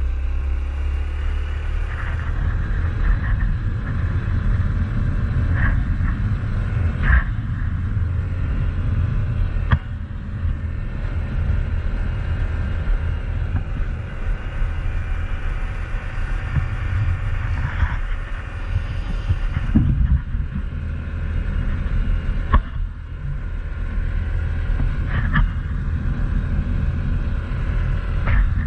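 Honda CT125 Trail's single-cylinder four-stroke engine running as the bike rides along a sealed road, under a heavy low rumble of wind and road noise. The engine's pitch rises in the first few seconds, and a few sharp knocks cut through.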